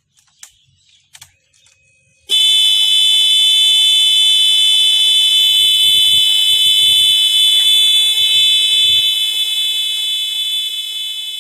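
Electronic alarm buzzer of a homemade child-left-in-car warning device sounding a loud, steady, high-pitched tone. It comes on suddenly about two seconds in, after a couple of faint clicks, and grows fainter near the end.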